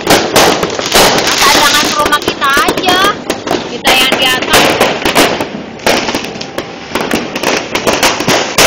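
Fireworks and firecrackers going off all around in a rapid, dense string of loud overlapping bangs and crackles.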